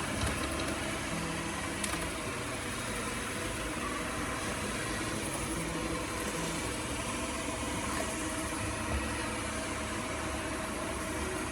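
Robot vacuum cleaner running with a steady, even motor-and-suction noise on its first run, while it maps the house.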